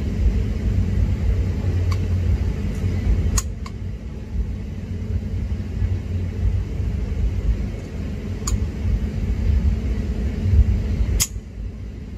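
A metal spoon clinks sharply against a bowl a few times as it scoops a yogurt mixture. Underneath runs a constant, fluctuating low rumble.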